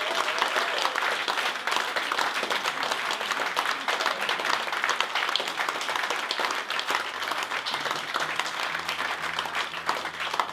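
Audience applauding: many hands clapping in a dense, steady patter that eases slightly toward the end.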